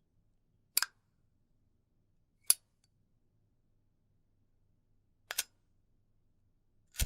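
Four sharp metallic clicks a couple of seconds apart, some of them doubled: a Zippo lighter's hinged lid snapping open and shut, its signature click.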